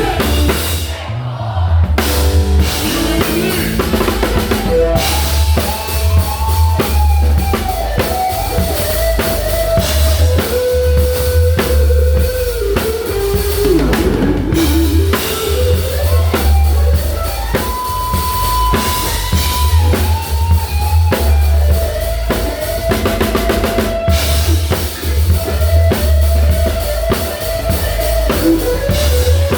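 Gretsch Catalina Club drum kit played to a recorded country-rock song: steady kick drum and snare with crashing cymbals, over the track's melody. The cymbals drop out briefly about a second in.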